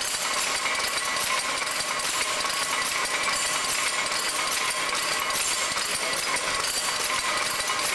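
Shuttle loom with Cowburn and Peck's drop box motion running, giving a steady, dense metallic clatter of its levers, gears and shuttle boxes.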